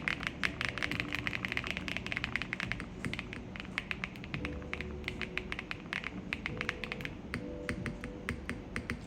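Mechanical keyboard being typed on rapidly: fast, dense runs of key clacks with brief pauses, over quiet background music.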